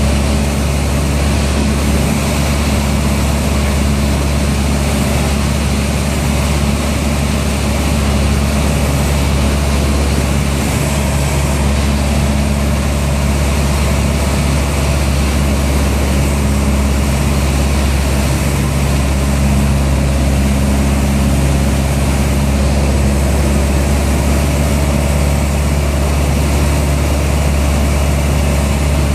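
Single-engine light aircraft's piston engine and two-blade propeller droning steadily, heard from inside the cockpit.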